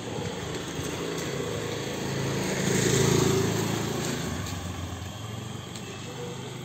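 An engine of a passing motor vehicle, its hum growing louder to a peak about three seconds in and then fading away.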